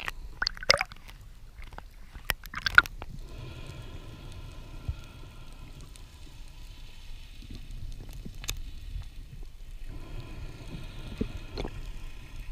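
Underwater sound through a camera housing: a few sharp clicks and knocks in the first three seconds as a speared grouper and the spear shaft are handled. Under them runs a steady low water rumble with a faint, even hum.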